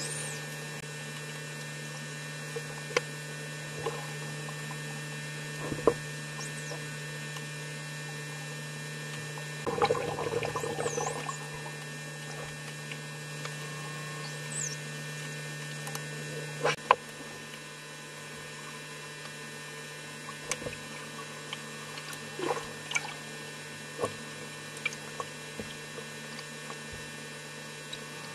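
Dolphins heard underwater: a few high whistles that glide up and down, and scattered sharp clicks. A short burst of water noise comes about ten seconds in, all over a steady low hum.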